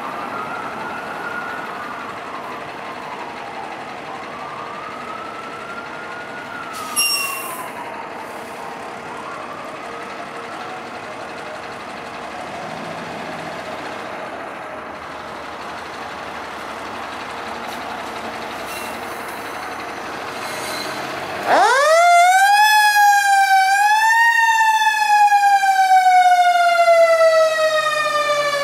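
Fire engine siren: a wail rising and falling at first, with a short, sharp high-pitched blast about seven seconds in. Near the end a much louder siren winds up steeply from low to high, peaks, then slowly falls in pitch.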